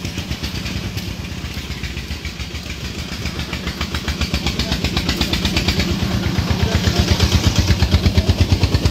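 A small engine running with a rapid, even beat, growing steadily louder.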